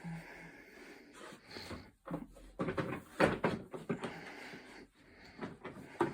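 Knocks, clatter and rustling from handling a vacuum cleaner and its tangled power cord, with a cluster of louder knocks a little past the middle.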